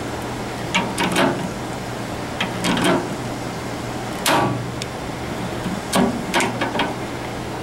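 Metal workpiece and hand tools being handled, giving short clanks and knocks in four brief clusters, the strongest about four seconds in, over a steady low hum.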